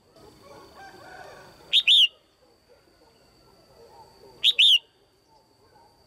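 Female red-whiskered bulbul calling twice, about three seconds apart, each call a quick pair of downward-sliding whistled notes. This is the female's call, used to stir up male bulbuls or for pairing.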